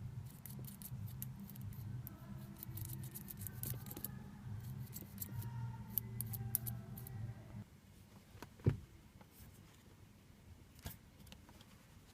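Quick plastic-and-metal clicks of parts being handled on a BMW E36 steering column, over a steady low hum that stops about eight seconds in; a single sharp knock follows shortly after.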